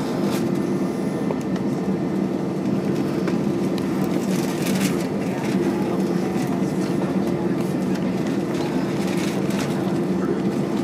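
Cabin noise of an Airbus A320-232 taxiing: its IAE V2500 engines running at low taxi thrust, a steady hum with two held tones over a hiss of air and rolling noise, with a few light rattles and clicks.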